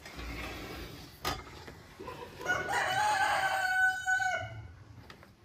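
A rooster crows once, one long call of about two seconds in the second half, rising at the start, then held and cut off. Earlier comes a single sharp knock about a second in.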